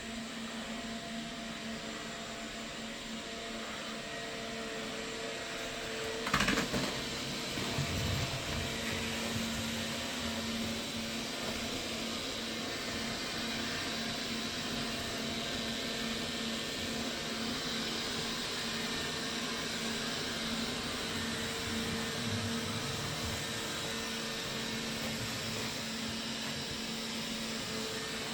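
Roomba robot vacuum running with a steady whir and hum. A short knock comes about six seconds in, and a smaller one a couple of seconds later.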